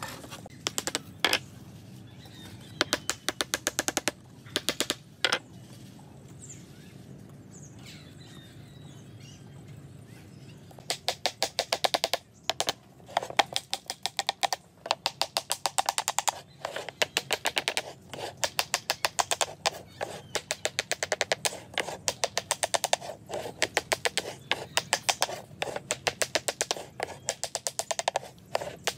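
Hammer tapping quickly on a mitred wooden frame, in runs of light, rapid strikes with short pauses between. A few runs come early, then a long, denser stretch of tapping follows from about a third of the way in.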